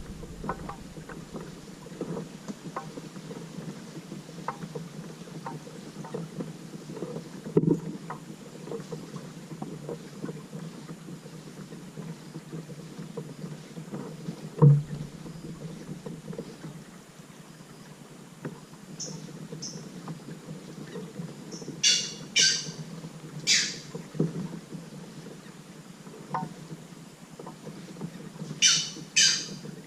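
Kayak being paddled: steady water noise with many small knocks of the paddle and hull, and two louder thumps. In the last third come a few short, high-pitched squeaks, twice in quick pairs.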